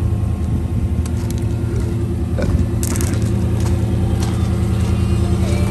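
A Chevrolet Silverado 1500 pickup's engine idling steadily, with a brief scratchy noise about three seconds in.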